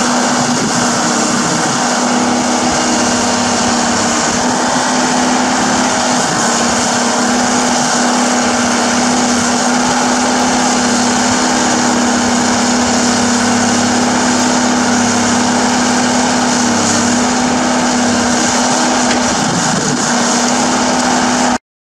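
Komatsu hydraulic excavator's diesel engine running steadily at a constant pitch while the machine works. The sound cuts off suddenly near the end.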